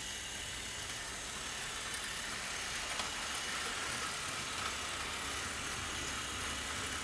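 OO gauge model locomotive running on track: a steady electric-motor hum with the rumble of wheels on rail as it pulls a train of box vans.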